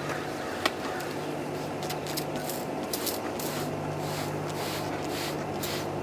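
Hand-held trigger spray bottle squirting water onto a clustered honey bee swarm, a quick string of short hissy squirts from about two seconds in, wetting the bees' wings so they cannot fly. A steady low hum runs underneath.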